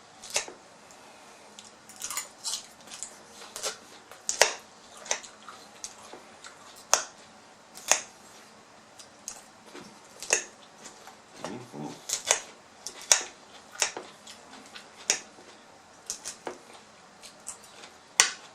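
Close-miked eating: a person chewing food, with irregular wet mouth clicks and smacks about once or twice a second.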